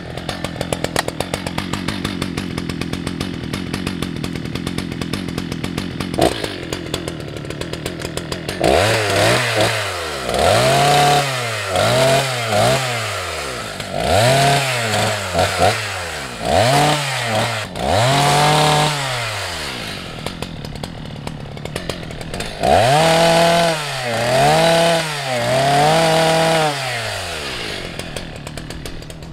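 Husqvarna 181 SE two-stroke chainsaw idling for about eight seconds, then revved up in a string of short bursts, each rising and falling back in pitch. It drops back to idle a little past twenty seconds in, then is revved three more times and settles to idle again near the end.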